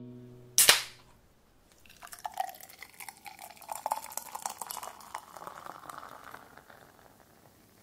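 A beer is opened with a sharp pop and hiss, then poured into a glass, splashing and crackling, the pitch rising slowly as the glass fills.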